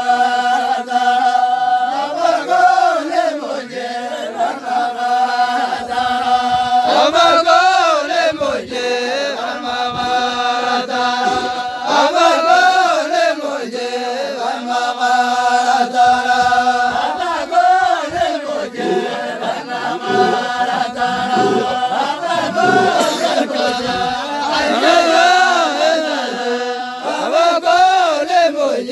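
A group of people chanting a repeated phrase. The melody rises and falls about every five seconds over a steady held note.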